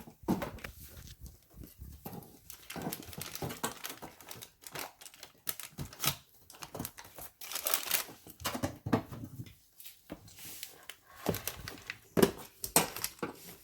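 Irregular crinkling, rustling and scraping of a peel-and-stick vinyl floor plank and its half-peeled backing paper as it is handled and worked into place.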